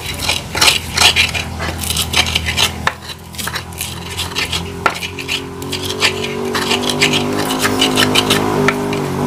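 Mortar and pestle (cobek and ulekan) grinding chilies, shallots and garlic: a continuous run of knocks and gritty scrapes of the pestle against the mortar. About halfway through, a steady engine hum rises underneath and grows louder.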